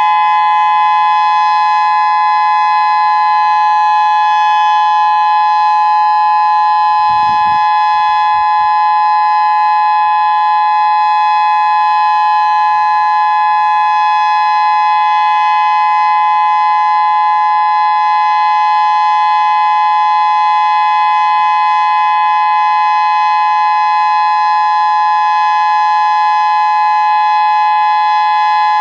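Federal Signal Modulator 6024B electronic warning siren sounding its steady Full Alert tone: two close pitches held loud and unchanging, with no rise or fall.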